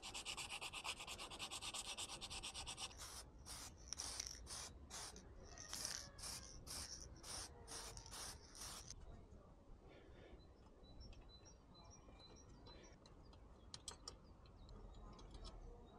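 Sandpaper worked by hand over a bicycle frame: quick, dense rubbing for about three seconds, then slower back-and-forth strokes about two or three a second. The strokes stop about nine seconds in, leaving only faint small ticks.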